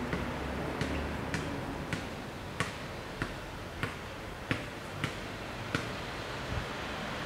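Level crossing warning bell striking at an even pace of about one and a half strikes a second, each a sharp, short ding, over a low background hum.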